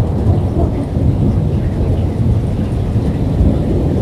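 Thunder rumbling low and continuously, with rain falling.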